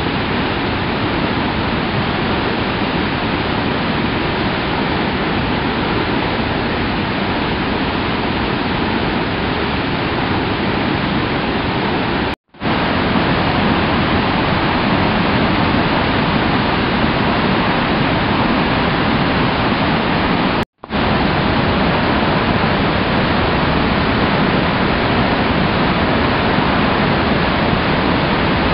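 A river in flood rushing through whitewater rapids: a loud, steady rush of water, broken twice by brief gaps of silence.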